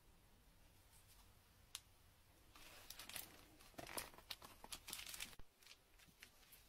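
Faint crinkling and rustling of bubble wrap and tissue paper being handled, a run of soft crackles and clicks from about two and a half seconds in until about five and a half seconds in.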